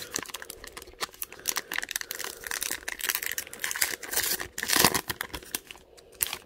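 A baseball card pack's wrapper crinkling and rustling in the hands as it is handled and the cards are pulled out: an irregular run of crackles, loudest about five seconds in, stopping shortly before the end.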